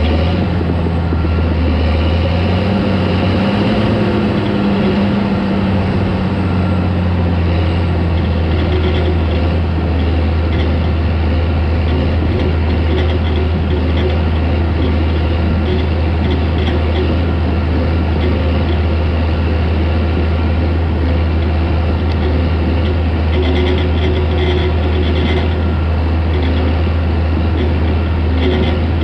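Caterpillar D4 crawler tractor's diesel engine running steadily under load, with a rise and fall in revs a few seconds in.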